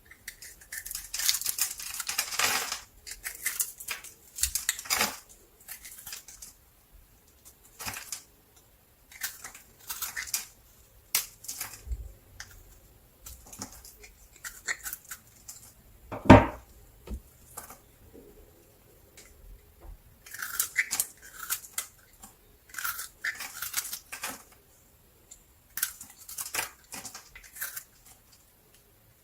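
Soap being cut into strips: a run of crisp, crackly cuts that come in irregular bouts, with one loud knock about halfway through.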